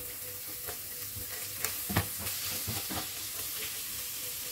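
Raw chicken cubes and chopped onion sizzling in butter in a non-stick grill pan, with a steady hiss and a spatula scraping and knocking against the pan a few times as they are stirred, frying until the chicken turns from pink to white.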